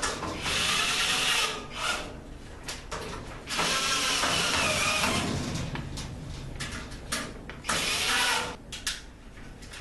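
Cordless drill driving screws into the sheet-metal frame of a storage cabinet, in three runs with its pitch rising and falling, the middle run the longest at about two seconds. Short metallic clicks fall between the runs.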